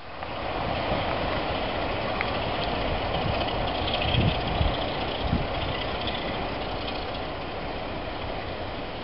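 Class 33 diesel locomotive's Sulzer eight-cylinder engine thrashing as it pulls a train away, slowly fading as it draws off. A few low thumps come about four to five seconds in.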